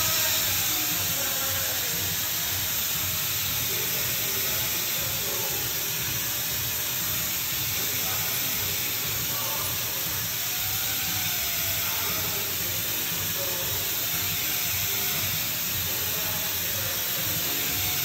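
Air-powered handheld disc sander running steadily against the edge of a Yorkstone slab, a continuous high whirr and hiss as it grinds a pencil round profile into the stone. Background music with a wavering melody plays over it.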